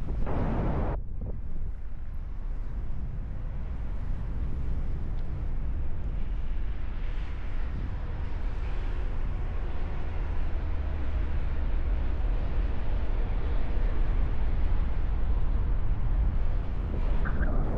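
Wind buffeting the camera's microphone as the paraglider flies: a steady low rumble, with a brief louder gust right at the start.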